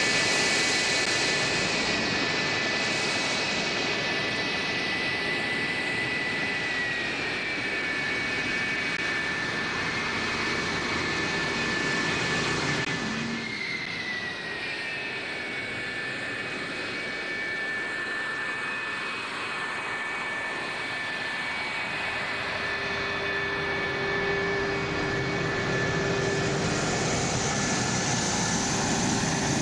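Jet engines of Lockheed F-104S Starfighters (General Electric J79 turbojets) running on the ground: a steady rush with a high whine on top. The whine drops slightly in pitch twice, and a lower hum joins in near the end.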